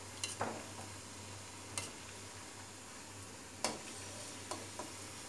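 Hot oil sizzling steadily as cabbage masal vadai deep-fry in a steel kadai, with a few sharp clicks of a metal slotted spoon against the pan as the golden-brown vadai are lifted out.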